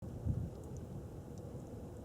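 Wind rumbling on the microphone, with a gust about a quarter of a second in, over a faint steady tone.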